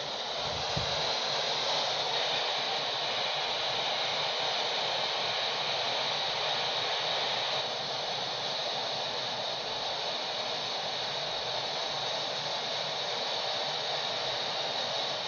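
Steady static hiss from a Uniden handheld CB transceiver's speaker, with no station coming through on the channel.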